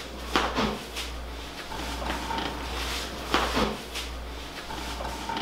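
Cookware being handled in a kitchen: two short clattering knocks about three seconds apart, over a steady low hum.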